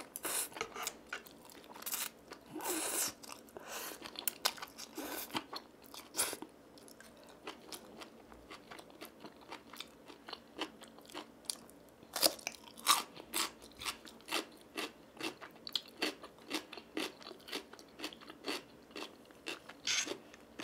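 Close-miked eating: a few noodle slurps of Buldak spicy stir-fried noodles in the first six seconds, then many short crisp crunches of chewing from about twelve seconds in, typical of biting into young-radish (chonggak) kimchi.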